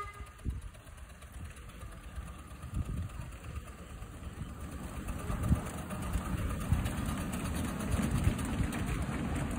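Miniature railway train passing close by: a low rumble with irregular knocks from the locomotives and wheels on the track, growing louder as the train goes by and loudest near the end as the rear locomotive passes.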